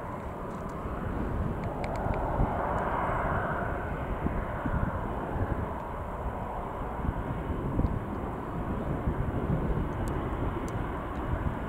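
Jet engines of an RAF Airbus Voyager KC.2 (A330 tanker, Rolls-Royce Trent 700 turbofans) running, a steady rush over a low rumble that swells a little a few seconds in.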